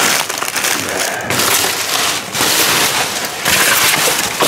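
Plastic bags and food packaging crinkling and rustling loudly as trash is dug through and shoved aside in a dumpster.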